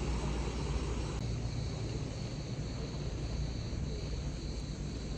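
Outdoor background noise: a steady low rumble with a faint, thin steady high hum above it; the higher hiss drops away about a second in.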